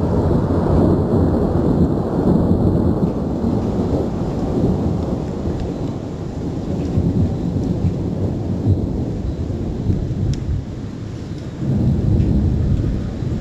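Thunder rumbling in a long, continuous roll. A fresh peal swells in near the end, right after a lightning flash.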